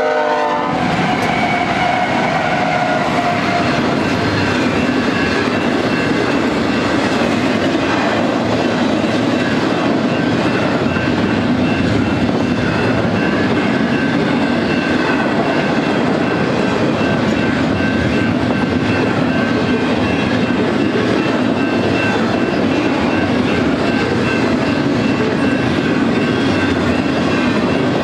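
BNSF double-stack intermodal freight train passing close by at a level crossing. A horn blast cuts off at the very start as the lead GE ES44C4 locomotive 7923 and its trailing units go by. After that comes the steady rumble and clickety-clack of the container cars' wheels on the rails.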